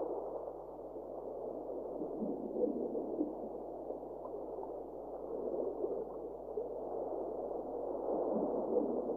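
Muffled, steady background music with soft wavering tones.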